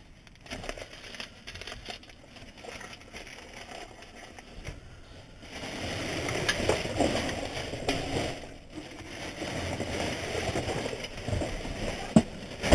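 Plastic garbage bags crackling and rustling as they are pulled and shifted by hand, quieter for the first few seconds and louder from about halfway, with one sharp knock near the end.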